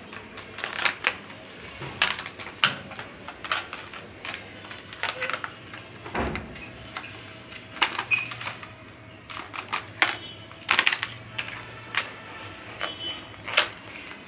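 Clear plastic cup clattering and skidding across a tile floor as kittens bat it around: irregular sharp clicks and knocks, with a duller thump about six seconds in.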